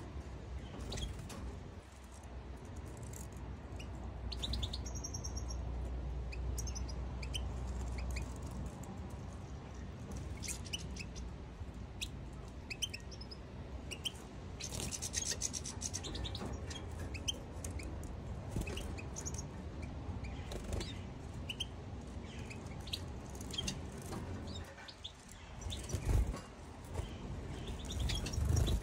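Caged European goldfinches giving scattered short, high chirping calls and twitters, with a denser run of calls about halfway through, over a steady low rumble. Two low thumps come near the end.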